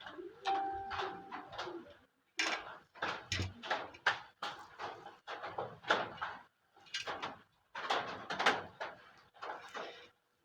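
Handling noise from threading cord through a curtain track's plastic runners and pulleys: irregular rustling, scraping and clicking, with a few short pauses.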